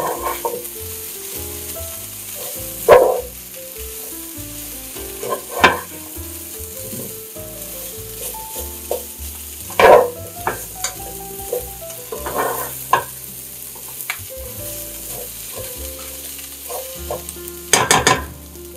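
Cubed butternut squash, onion and spices sizzling in a hot frying pan, with a slotted spatula scraping and turning them every few seconds. The loudest scrapes come about three seconds in, near the middle and near the end.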